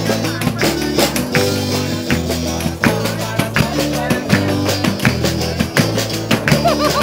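Live band playing a song with a steady beat: acoustic guitar, bass guitar, a drum kit and a pandeiro (frame drum with jingles), the bass notes moving about every half second.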